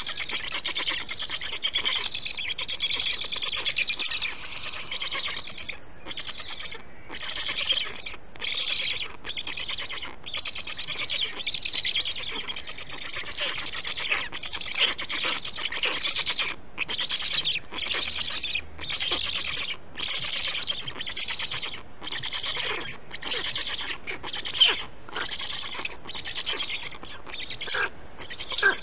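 Birds chirping and calling without a break, many short high calls overlapping, with sharper, louder calls now and then.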